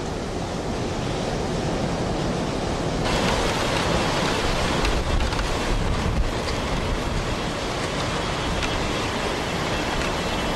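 Hurricane wind rushing and buffeting the microphone at the edge of the storm's eye, a steady wash of noise that grows stronger and hissier about three seconds in.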